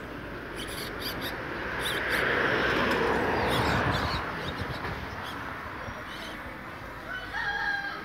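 Caged songbirds give a few short high chirps, over a loud rushing noise that swells up from about two to four seconds in. Near the end a rooster starts a long drawn-out crow.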